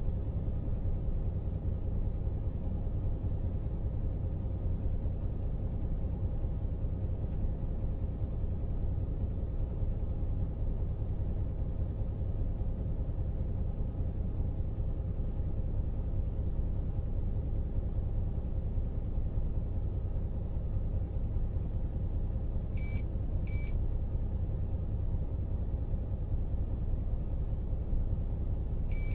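Steady low rumble with a faint steady hum, heard inside a stationary truck cab. Near the end, a pair of short high beeps sounds about half a second apart.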